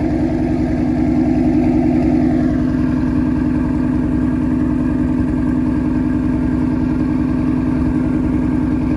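Ford Mustang S550 engine idling steadily soon after a cold start; its note eases slightly lower about two and a half seconds in. Having had no battery power for a couple of months, the car is relearning its idle, though it is not sounding too bad.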